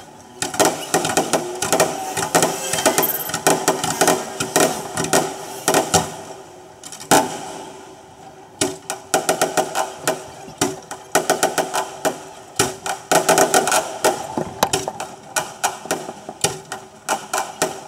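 Aerial firework shells bursting, sped up so the bangs and crackles come as a rapid clatter of sharp cracks, several a second, with brief lulls.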